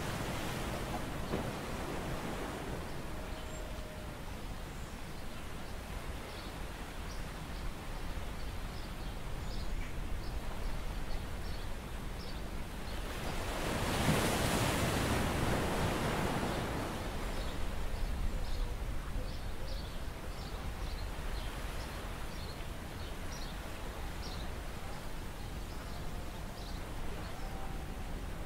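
Shallow seawater sloshing and lapping as a gloved hand works in it, with a louder stretch of splashing about halfway through. Faint light ticks sound throughout.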